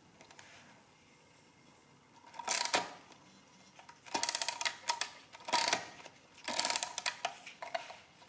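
Multifix E1R mechanical calculator being hand-cranked: its oscillating-segment mechanism and gears clatter in several short runs of rapid ticking, starting about two seconds in.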